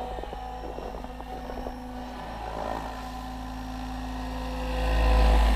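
Electric SAB Goblin 700 radio-controlled helicopter flying at raised rotor speed (bank 2), its rotors and motor giving a steady whine. The sound grows louder near the end as a low rumble swells.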